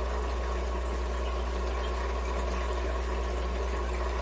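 Steady low hum with an even hiss over it, unchanging throughout; background noise with no speech.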